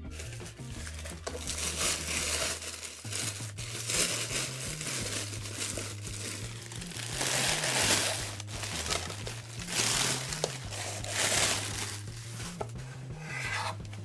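Tissue paper wrapping crinkling and rustling in repeated bursts as it is pulled off a toy, over background music with a low bass line.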